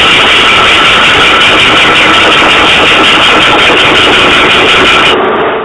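Loud workshop machine running steadily, a dense mechanical noise with a steady high whine through it; it cuts off suddenly near the end.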